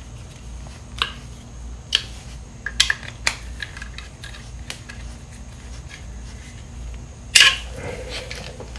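Small, sharp clicks and taps of a hand driver working the screws of a bolt-on engine case cover, a handful spread over the first five seconds, then one louder, longer handling noise near the end.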